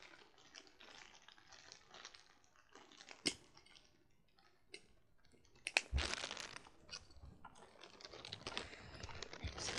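A plastic bag being handled, crinkling and rustling, with a few sharp clicks and knocks: one about three seconds in and the loudest near six seconds. The rustling thickens toward the end.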